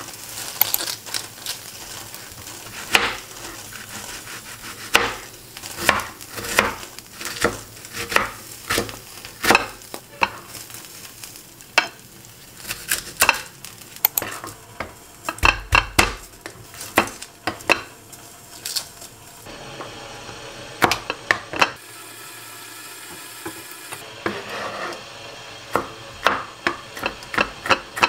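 Cooking sounds: a utensil stirring in a pan, with irregular knocks and clicks against the cookware over a steady sizzle.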